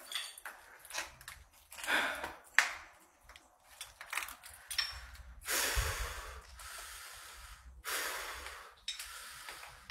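A man breathing hard close to the phone's microphone: a run of short breaths, then two long rushing exhales, each about a second, just past halfway and near the end. Faint clicks come in between.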